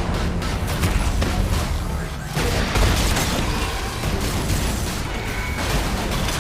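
Dense film-trailer sound mix: dramatic score under booms and rapid sharp impacts like gunfire.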